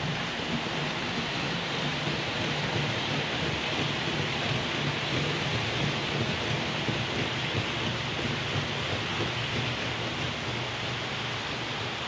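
Model trains running through the layout's wooden helix: a steady rattling rush of wheels on track, with a low motor hum underneath.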